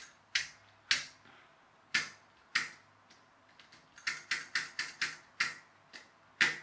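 Sharp finger taps on the plastic lens housing of an unlit 28-LED mains light strip module: a few spaced taps, then a quicker run of taps about two-thirds of the way through. The taps test a strip that stays dark while its partner lights, a loose wire or connection at a rough guess.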